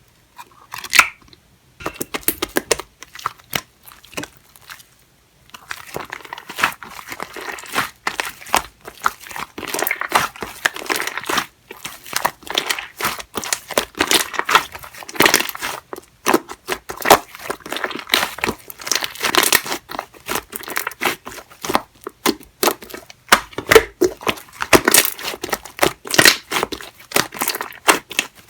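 Purple clear slime mixed with shaving foam being squeezed and stretched by hand, giving dense, irregular crackling and popping clicks with a short pause about four seconds in.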